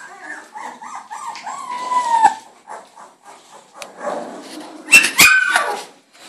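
Very young puppies whining and squealing in short, high, rising and falling cries, with a louder burst of yelps about five seconds in.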